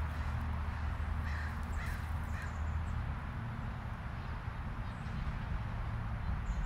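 Steady low rumble of distant road traffic, with crows cawing: three short caws between about one and two and a half seconds in. The deepest part of the rumble eases about three seconds in.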